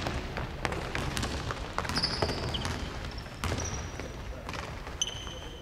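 Basketball game on a hardwood gym floor: scattered knocks of the ball bouncing and players' running footsteps, with several short, high sneaker squeaks.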